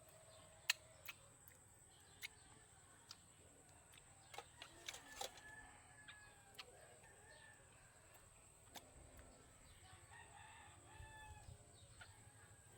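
A rooster crowing faintly twice, about five seconds in and again near ten seconds. Scattered sharp clicks and taps from eating run through it, the loudest in the first second.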